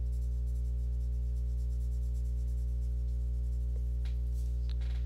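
Pencil shading on sketchbook paper, faint scratching strokes, over a loud steady low hum.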